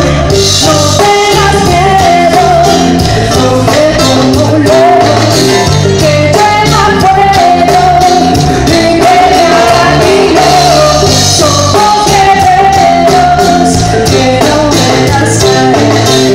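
Live ska-reggae band playing loud: drum kit and bass under a trombone and saxophone horn line, with a singer's voice.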